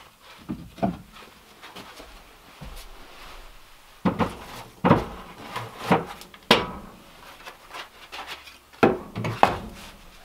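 Split firewood logs knocking and clattering as they are lifted from a stack and laid into a wood stove's firebox. A few knocks come near the start, a run of them from about four to six and a half seconds in, and more near the end.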